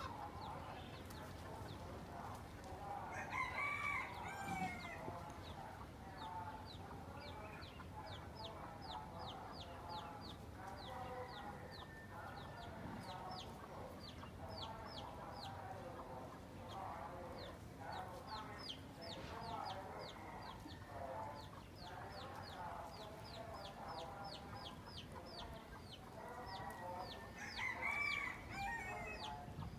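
Chickens clucking over a steady run of short, high peeping calls. A louder drawn-out crowing call comes about three seconds in and another near the end.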